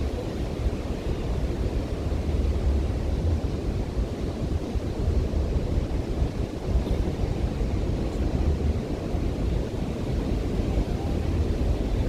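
Ocean surf washing on a sandy beach, mixed with wind buffeting the microphone: a steady low rush that swells and eases without a break.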